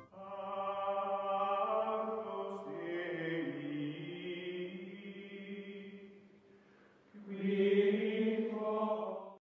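Outro music of sustained choral chanting in two long held phrases, the second louder one cutting off abruptly near the end.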